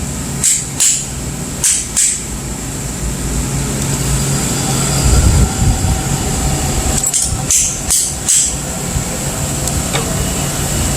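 Refrigeration compressor of a True beer cooler running with a steady low hum, started by a 3-in-1 hard-start kit (solid state relay, overload and start capacitor) after it had been failing to start. Four sharp knocks come in the first two seconds and four more, evenly spaced, about seven seconds in.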